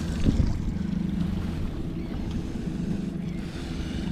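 Boat motor running steadily with the boat under way, wind rushing over the microphone; a brief thump about a third of a second in.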